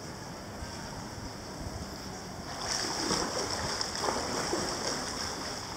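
Pool water splashing and lapping as a snorkelling swimmer moves at the surface, getting louder and more irregular about halfway through, over the steady hum of an indoor pool hall.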